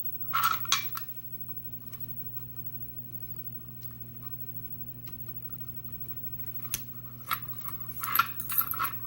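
Small metallic clicks and taps from handling the parts of a Yale lock cylinder being taken apart, bunched in the first second and again near the end. In between, a steady low hum.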